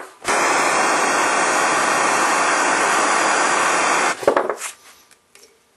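Handheld propane torch burning with a steady hissing flame that cuts off about four seconds in. A few short metallic knocks follow.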